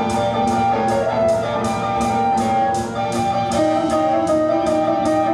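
Guitar-led band music: sustained chords with a steady quick beat of about three strokes a second, the chord shifting about three and a half seconds in.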